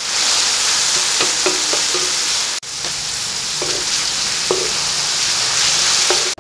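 Chicken and liver pieces sizzling loudly in hot oil in a wok, with a spatula scraping and stirring them against the pan several times. The sizzle breaks off for an instant about two and a half seconds in, then carries on.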